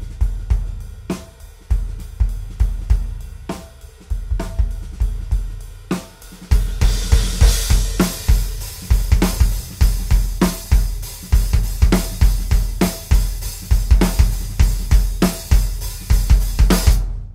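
Drum kit groove played on a DW Design Series kit. Its 22x18 bass drum wears a coated single-ply Remo Ambassador head and gives a very open kick, with low ring carrying between strokes. About six seconds in the playing gets louder and busier, with cymbals washing over a denser kick pattern, and it cuts off near the end.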